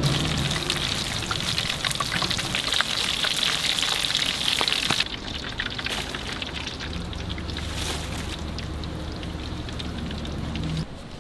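Battered food deep-frying in a wok of hot oil: a dense crackling sizzle for about five seconds, then a quieter crackle over a low steady hum.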